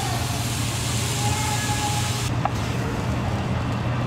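Sesame-crusted tuna searing in hot oil in a frying pan, sizzling steadily with a low hum under it; the hiss loses some of its top end a little over two seconds in.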